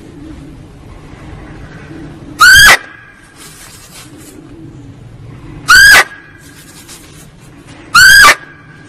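Muntjac (kijang, barking deer) lure call: three short, loud barks two to three seconds apart, each a quick yelp that rises and then falls in pitch, over a steady background hiss.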